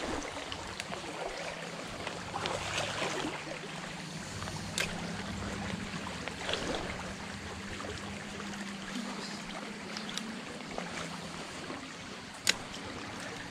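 Shallow creek water running and rippling, with the faint steady whir of a spinning reel being cranked through a lure retrieve. A few light clicks, the sharpest near the end.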